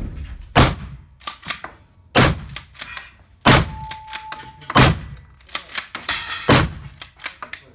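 Rifle shots echoing in an indoor shooting range: about five loud shots a second or so apart, with fainter sharp clicks and knocks between them. A short ringing tone sounds in the middle.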